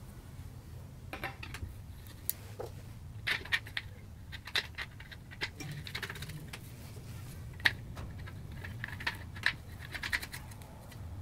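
Irregular light clicks, taps and short scrapes of a round LED headlight and its bracket being handled and fitted by gloved hands, with one sharper click about two-thirds of the way through, over a steady low hum.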